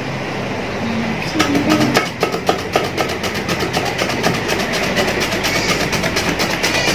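Raw peeled potato being pushed back and forth across the slicing blade of a metal box grater, cutting thin chip slices: a fast, regular run of scraping strokes, several a second, starting about a second and a half in.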